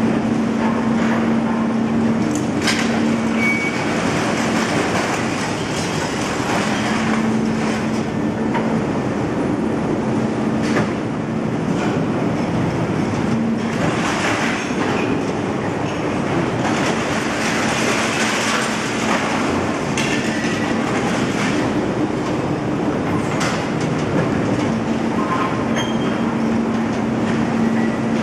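Overhead magnet crane running on its rails: a steady mechanical rumble with a hum from its drive that comes and goes in stretches, and a few sharp clanks of scrap metal.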